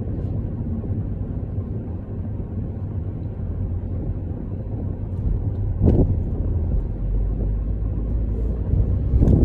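Steady low rumble of a car on the move, heard from inside the cabin: engine and road noise. A brief thump comes about six seconds in.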